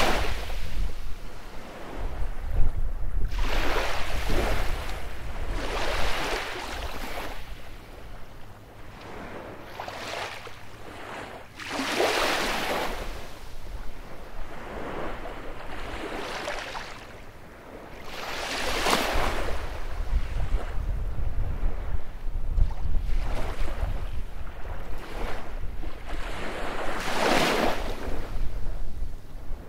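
Baltic Sea surf breaking on a beach: waves rush in one after another every few seconds, each swelling and then fading, some louder than others. Under the surf runs a steady low rumble of wind on the microphone.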